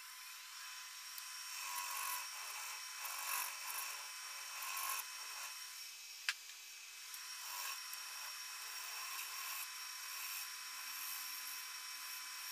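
Wood lathe running with a steady high whine while a gouge cuts the spinning foot blank in several short scraping passes. A single sharp click about six seconds in.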